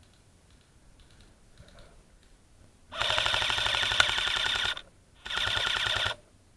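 Airsoft gun firing on full auto in two bursts: a rapid, even rattle of about two seconds, then a shorter burst of under a second after a brief pause.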